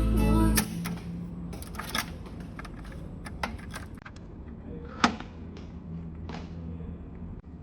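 Music playback cuts off about half a second in. It is followed by scattered sharp clicks and light knocks, the loudest about five seconds in, over a steady low hum, typical of handling a cassette deck's controls and mechanism.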